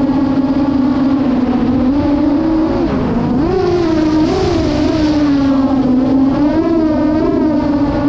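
8-inch FPV quadcopter's Hyperlite 2807.5 brushless motors spinning two-bladed MasterAirscrew 8x4.5 props: a loud, buzzy drone whine whose pitch swings up and down with the throttle, with several quick rises in the second half. Heard from on board the craft.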